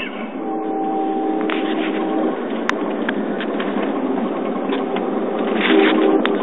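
Amtrak California Zephyr passenger car rolling at speed, heard from inside: a steady rumble with scattered clicks and knocks. A steady whine holds from about half a second to two seconds in, and the rumble grows louder near the end.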